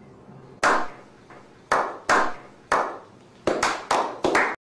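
A small group slow-clapping: single claps about a second apart at first, quickening into a faster run near the end.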